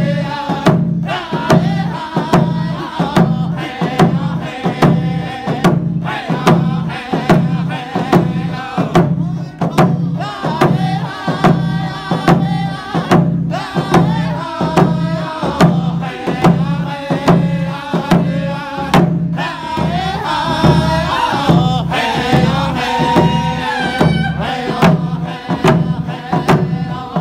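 Round dance song: a group of men singing together in unison while striking hand-held hide frame drums with beaters in a steady, even beat.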